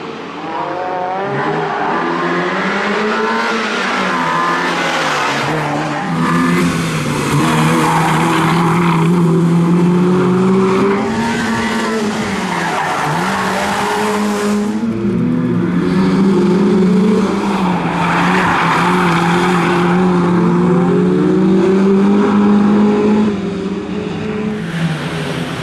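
BMW E30 318is four-cylinder engine driven hard, its pitch rising and dropping repeatedly with throttle and gear changes, while the tyres squeal in several bursts of a few seconds through the corners.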